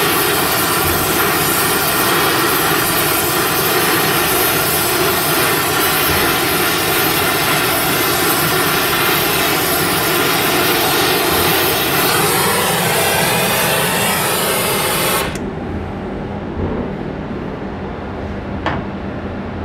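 Gas torch flame hissing loudly and steadily while it melts a tungsten-carbide hardfacing rod onto a red-hot steel block. The flame is shut off abruptly about three-quarters of the way through, leaving a quieter steady hum and one sharp click.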